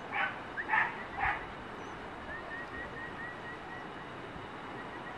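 A dog barks three short times in quick succession. A faint, high chirping then repeats evenly, a few times a second.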